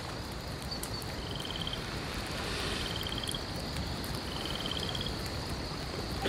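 Night-time outdoor ambience: a steady hiss with a frog calling three times, each call a short, rapid, high trill.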